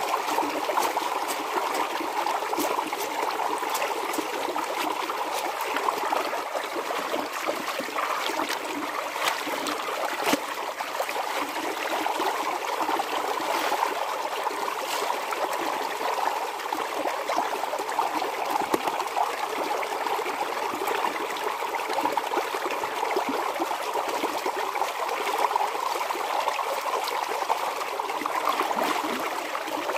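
Steady trickling and rushing of flowing water, with scattered splashes and drips as wet clothes are wrung out by hand.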